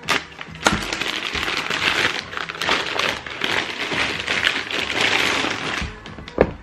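Tissue wrapping paper from a trainer box being handled, rustling and crumpling. There are a couple of sharp taps near the start and another near the end.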